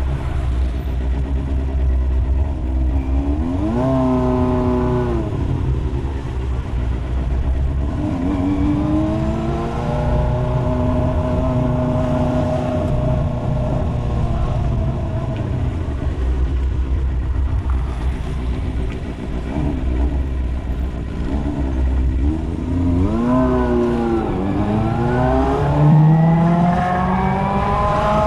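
Motorcycle engine pulling away and easing off in slow traffic, its pitch rising and falling three times over a steady low rumble.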